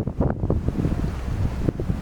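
Wind buffeting the microphone in irregular low rumbling gusts, strongest in the first second.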